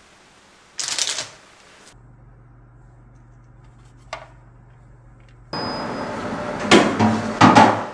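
A brief scrape about a second in, then an oven door opening and a metal baking tray clattering onto the oven rack, with two loud knocks near the end.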